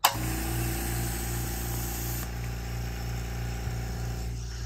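Makita MAC100Q Quiet Series oil-free air compressor switching on and running steadily, a low motor-and-pump hum with a hiss over it, as it pumps up tank pressure. Pretty quiet.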